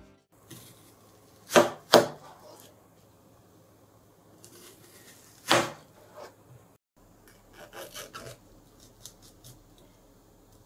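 Chef's knife cutting a new onion into wedges, the blade knocking sharply on a plastic cutting board: two knocks close together about two seconds in, another in the middle, then a few fainter clicks near the end.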